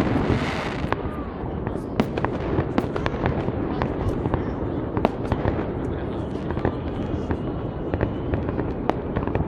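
Fireworks going off: a steady run of sharp bangs and crackles over a continuous low rumble, with a hiss about the first second.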